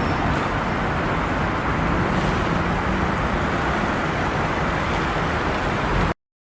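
A car driving on a road: a steady rush of tyre and road noise with a faint low engine hum, cutting off abruptly near the end.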